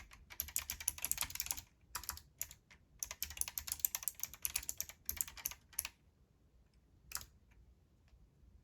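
Typing on a Keychron K1 version 4 low-profile mechanical keyboard with Gateron low-profile blue clicky switches: rapid high-pitched clicks together with a clanky bottoming-out. After a couple of short pauses, the typing thins to a few single keystrokes about six seconds in.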